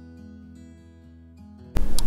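Quiet background music of steady held notes; near the end, louder, fuller music cuts in abruptly.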